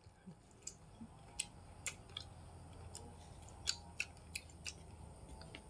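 Quiet eating sounds: scattered small clicks and smacks, irregular and a few per second at most, as people eat rice and noodles with their hands. Beneath them runs a low steady hum.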